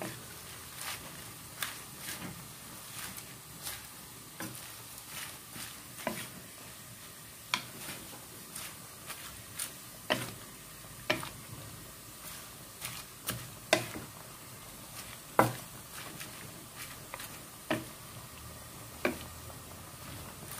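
Wooden spatula stirring vegetables in a wok, knocking and scraping against the pan in irregular sharp taps about every second, a few of them louder, over a faint steady sizzle.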